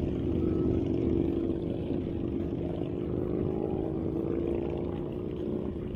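A group of touring motorcycles running ahead on the road, their engine drone held steady and slowly fading as they pull away, over a low rumble.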